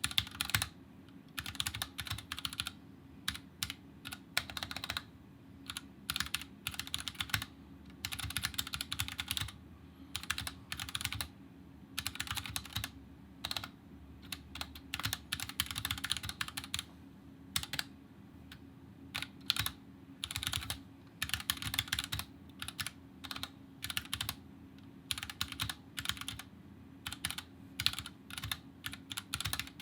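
Typing on the stock Kemove DK61 Snowfox 60% mechanical keyboard with Gateron red linear switches and double-shot ABS keycaps: rapid keystroke clacks in bursts with short pauses between them.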